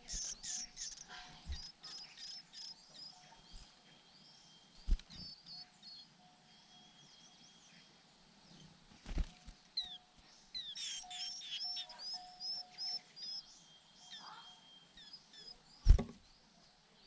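White-eye nestlings chirping in quick high series, loudest at the start and again past the middle, with quieter chirps in between. A few short dull thumps break in, the loudest near the end.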